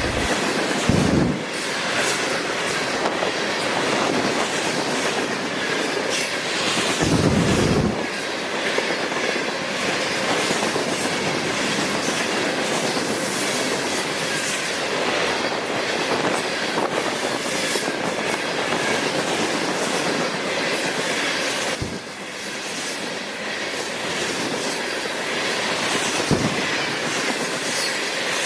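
A train rolling past, its wheels clicking over the rail joints with some wheel squeal, as a steady noise throughout, with two short low rumbles about one and seven seconds in.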